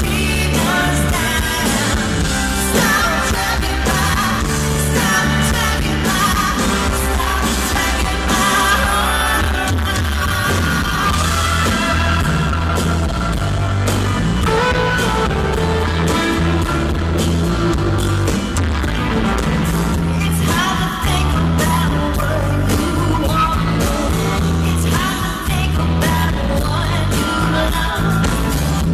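Live rock band with electric guitar playing loudly, a man and a woman singing a duet over it, recorded from the audience.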